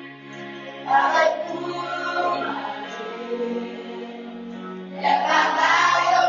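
A choir of voices singing a song with long held notes, getting louder about a second in and again about five seconds in.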